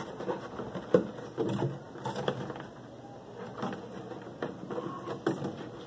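A cord being tied around the neck of a plastic PET jug by gloved hands: scattered rustles with a few sharp clicks and crackles from the plastic and the cord.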